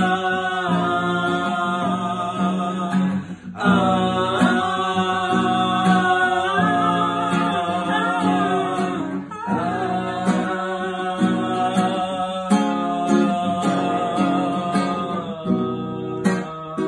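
Acoustic guitar played as accompaniment while a man sings a wordless, hummed melody over it, breaking off briefly twice; near the end the guitar strums on with the voice fading.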